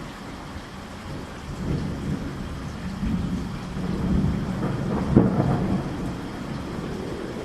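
Rain with rolling thunder, the rumble swelling to its loudest about five seconds in.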